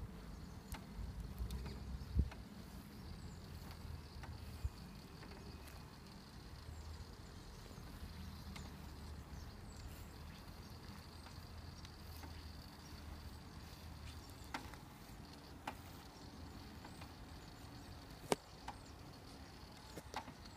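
Faint outdoor background: a low steady rumble and a thin high whine, broken by a handful of sharp clicks.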